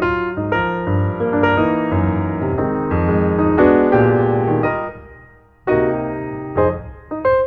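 Background piano music: notes played one after another, with a short lull about five seconds in before the playing resumes.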